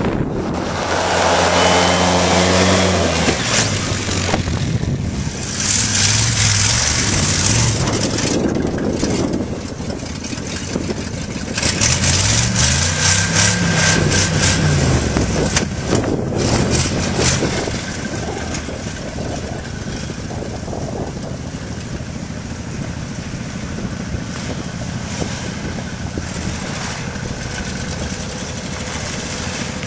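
Off-road 4x4 vehicle engine running in snow, steady at first, then revved up and back down about twelve seconds in, with wind buffeting the microphone.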